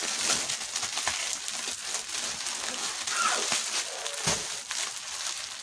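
Rustling and crackling noise with scattered short clicks, and a faint voice in the background about three seconds in.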